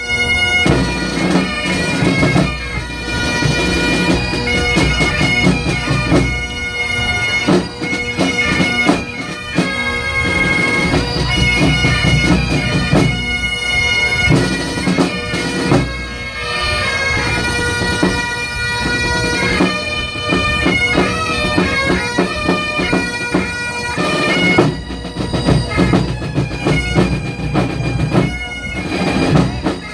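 Grade 5 pipe and drum band playing: Great Highland bagpipes carry a melody over a steady drone, with drum strikes running through it.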